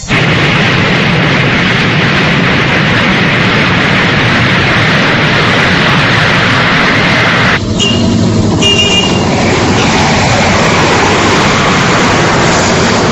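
Loud, steady rushing noise of a vehicle's engine, broken briefly about seven and a half seconds in, with a few short high tones just after.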